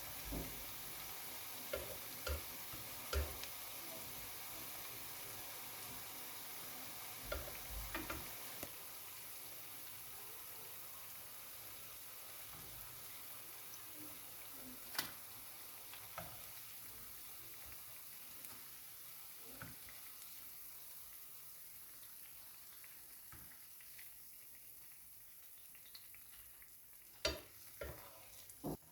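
Potato sticks deep-frying in hot vegetable oil: a steady sizzle that slowly dies down, with occasional clicks and taps of a utensil turning them.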